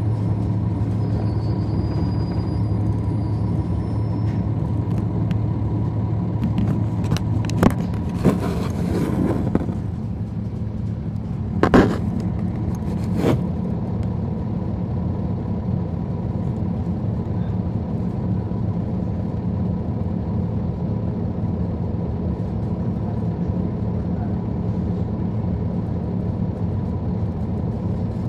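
NABI 416.15 (40-SFW) transit bus heard from the rear of the cabin, its Cummins ISL9 diesel engine running with a steady drone. A few sharp knocks and a brief rush of noise come between about eight and thirteen seconds in, and the engine note drops about ten seconds in and stays steady after.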